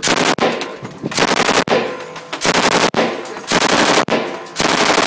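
M249 light machine gun firing 5.56 mm rounds in short automatic bursts, about five bursts of roughly half a second each, with the reports echoing in an indoor range between bursts.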